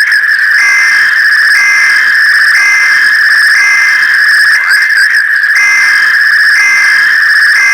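Loud electronic alert tone: a steady, high, whistle-like pitch with a slightly higher tone pulsing in about once a second, typical of an emergency alert broadcast signal. It wavers briefly about five seconds in.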